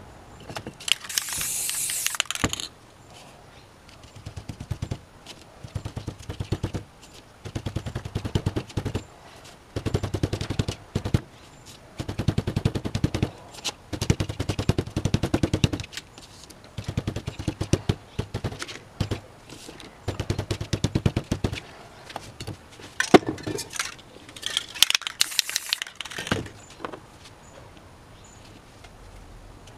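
An aerosol spray can hisses for about two seconds as paint is sprayed onto a scrap card. Then come repeated bursts of rapid tapping as the paint is dabbed by hand onto the painting board to build up tree foliage. Near the end there is another short hiss of spray paint.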